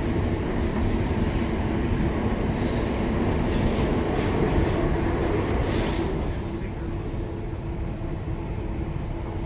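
Class 317 electric multiple unit heard from on board while running: continuous wheel-on-rail rumble under a steady hum. A brief high squeal comes about six seconds in, and the noise eases off slightly over the last few seconds.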